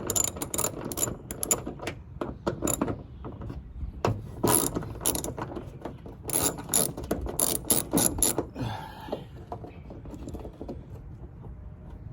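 Ratchet wrench with a 10 mm socket clicking in quick runs as the hood latch bolts are loosened. There are two runs of clicks, the second stopping a little past eight seconds in.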